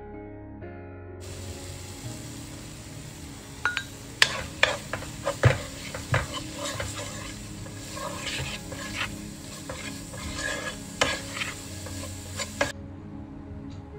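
Ground spices sizzling in hot oil in a frying pan while a spatula stirs and scrapes them, with sharp clicks of the spatula against the pan through the middle.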